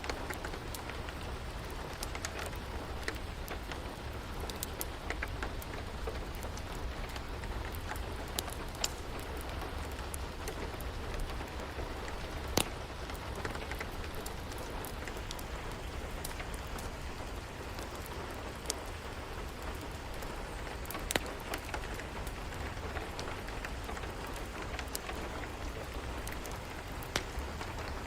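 Steady rain with a low rumble underneath, and scattered sharp pops and crackles from a wood fire burning in a fireplace.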